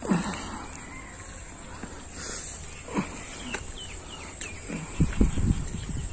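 Outdoor birds calling, with a few short falling chirps a little past the middle, over a steady high hiss. A cluster of low thumps near the end is the loudest sound.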